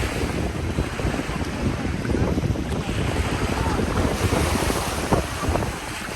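Wind buffeting the microphone over the wash of sea waves, a steady rumbling roar with no clear engine tone.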